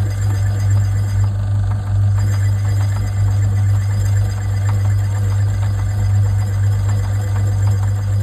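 Metal lathe running with an irregular pump casting spinning in the chuck: a steady motor hum with light, rapid ticking as the tool bit works the end of the casting's spigot.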